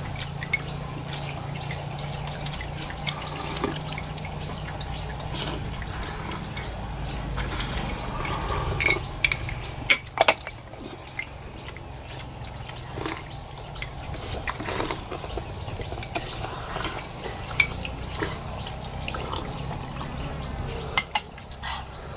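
Eating at a table of pho bowls: spoons and chopsticks clicking against bowls, with liquid sounds of broth, over a steady low hum. A few sharp clinks stand out about halfway through and near the end.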